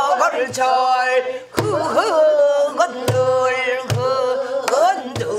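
A woman singing pansori in a full, strained voice, holding long wavering notes with heavy vibrato and sliding pitch. She is accompanied by strokes on a buk barrel drum: sharp cracks on the wooden frame and a few deep thumps on the drumhead.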